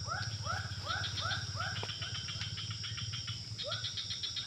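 Evening animal chorus: a frog repeating short rising-and-falling calls about three times a second, breaking off for a second or so mid-way before starting again, over a steady high insect drone and a low hum.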